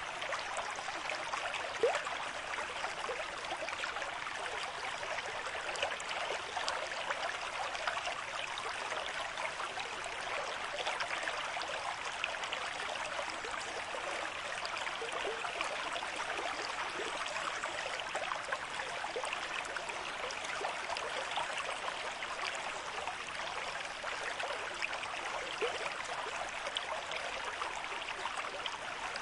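Stream of moderate flow running over rocks: a steady, even rush of water dense with small splashes and gurgles, with one slightly louder splash about two seconds in.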